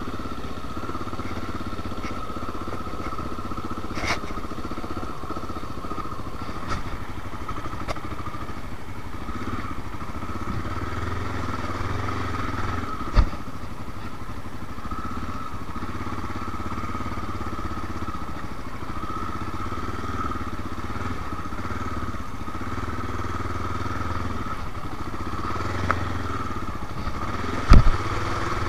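Honda XR650L's single-cylinder four-stroke engine running steadily as the dirt bike rides a rough, muddy trail. Two sharp knocks break through, one about halfway and a louder one near the end as the bike splashes into a puddle.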